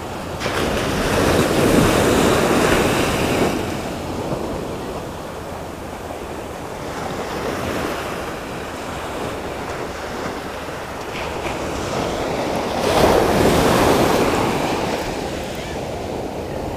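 Ocean surf breaking and washing up a sandy beach in a steady rush. Two waves swell louder, one about a second in and one near the end.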